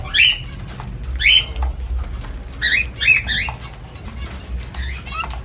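Cockatiels calling: short rising chirps, about six of them, several in quick succession around the middle.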